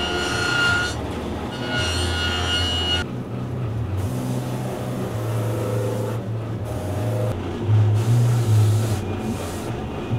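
A workshop machine running steadily with a low hum, a high whine over the first three seconds.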